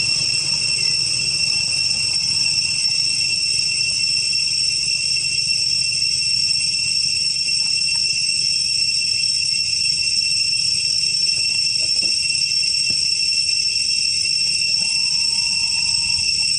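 Cicadas droning in a steady, unbroken high-pitched chorus.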